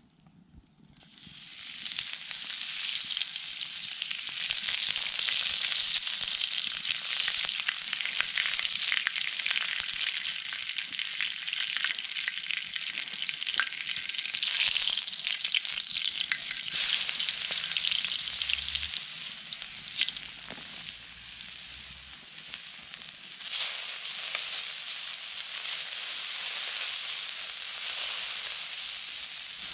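Fat sizzling on a hot steel plate over a campfire, starting about a second in and running steadily. Diced potatoes fry in the fat and are stirred with a wooden spatula; the sizzling drops back for a few seconds past the middle and then picks up again.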